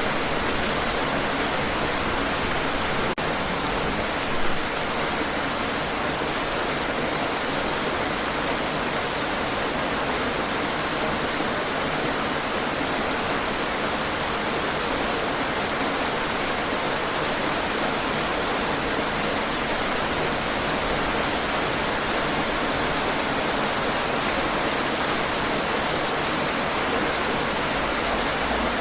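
Steady, heavy rain: a dense, even hiss of raindrops falling, with one brief slightly louder spatter about four and a half seconds in.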